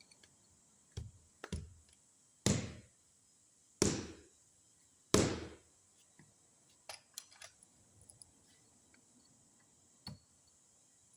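Small fishing-reel parts being handled and set down on a work surface during a teardown: a few light clicks, then three louder knocks in the middle, followed by scattered faint clicks and a last tap near the end.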